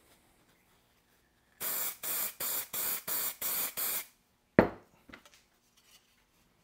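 A trigger spray bottle of degreaser squirting seven times in quick succession, about three squirts a second. A single sharp knock follows, then a few faint clicks.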